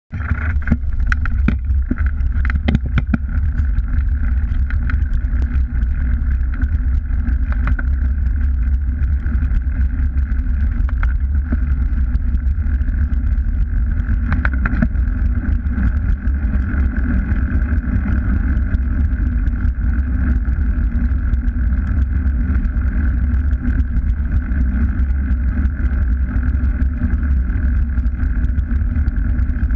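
Steady wind rumble on a bike-mounted camera's microphone, with the knobby tyres of a mountain bike rolling on the lane. A few sharp rattles of the bike come in the first three seconds and again about fifteen seconds in.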